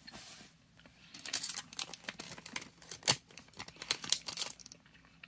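Foil-lined Airheads candy wrapper crinkling as it is handled: a dense run of sharp crackles and rustles starting about a second in and stopping near the end.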